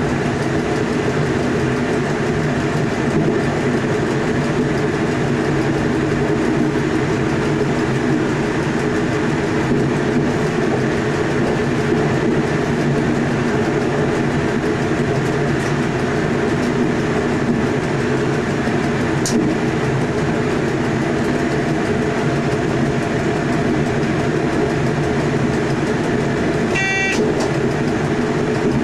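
Electric passenger train running steadily at speed, heard from the driver's cab: a continuous hum of the traction equipment mixed with rolling wheel and track noise. Near the end a short chime sounds in the cab.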